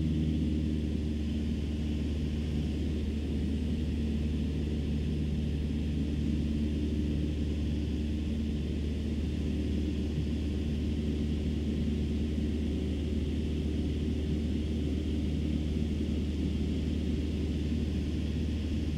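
Cessna 150's Continental O-200 four-cylinder engine and propeller droning steadily in flight, heard inside the cabin.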